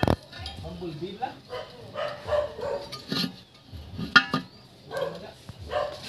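Indistinct voices and a dog barking, with a sharp metallic click as a new wheel hub bearing is set into the steering knuckle's bore.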